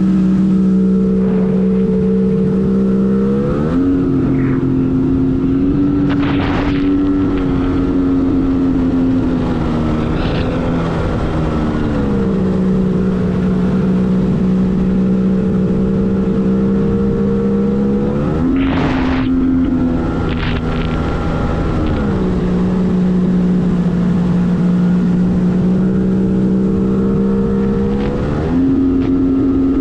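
Arctic Cat TigerShark Monte Carlo 1000 personal watercraft engine running under way at steady throttle. Its pitch steps up about three and a half seconds in, drops back near ten seconds, rises again near nineteen, drops near twenty-two and rises once more near the end. There are a couple of short rushes of noise, about six and a half and nineteen seconds in.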